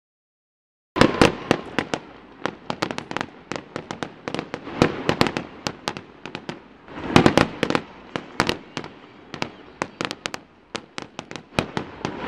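Aerial fireworks bursting: a fast, dense run of sharp bangs and crackling pops that starts about a second in, with heavier clusters of bursts about seven seconds in and again near the end.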